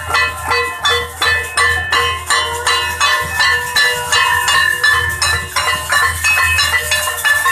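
Metal struck in a steady fast rhythm, about three strikes a second, each clang leaving a ringing tone.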